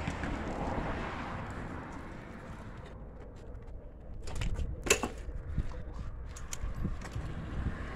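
Wind rumbling on the microphone, then from about halfway a run of light clicks and clatter with one sharp knock, as the plastic air box and its hoses are worked off a Predator 224cc engine with hand tools.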